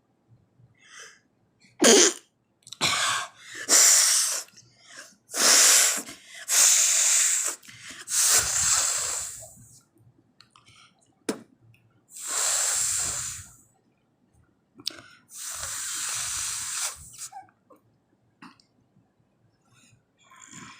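A person blowing their nose hard without a handkerchief, forcing repeated bursts of air out through the nostrils: about eight blows, some short and sharp, some drawn out for over a second, with pauses between. The nose is dry with no cold, so the blows are rushes of air bringing out only a little watery discharge.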